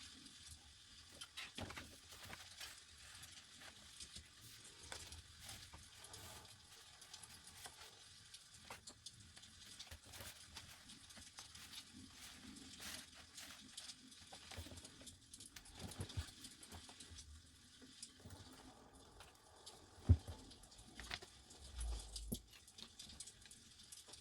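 Paper pages of a journal being turned and handled: light rustling and crackling with scattered small taps, a sharp knock about twenty seconds in and a low thump a couple of seconds after it.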